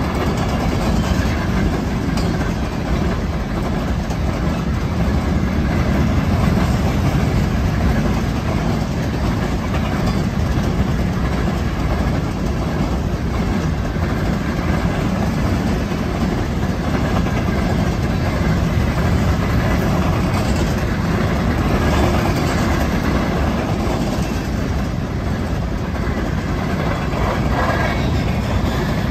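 Covered hopper cars of a fast-moving freight train rolling past: the steady rolling noise of steel wheels on the rails.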